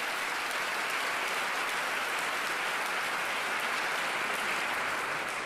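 Large indoor audience applauding steadily, a dense even clapping that begins to die down at the very end.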